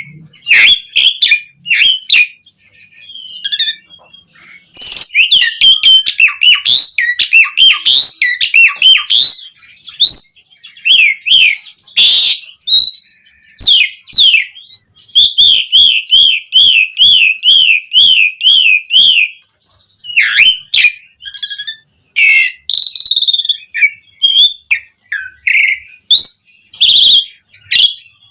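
Asian pied starling singing loudly: a rapid string of varied chirps, whistles and harsh notes, with a fast, even trill of rising and falling notes for about four seconds in the middle.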